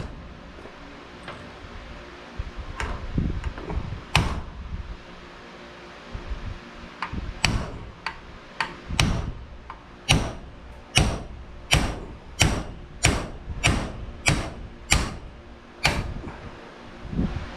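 Hammer taps on the metal drive parts of a garage door opener, knocking out a sleeve so the motor can be slid out. Sharp knocks with a short ring, a few spaced out at first, then a steady run of about one to two a second in the second half.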